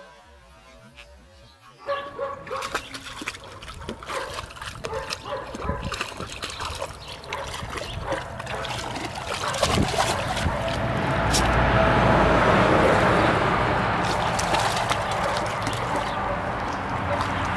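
Rough collie puppy pawing and splashing water in a paddling pool. The splashing starts about two seconds in and grows busier and louder toward the middle.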